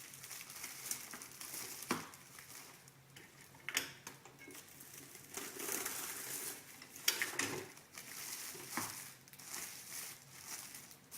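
Plastic shrink-wrap film crinkling and rustling as it is handled, with several sharp clicks and knocks in between.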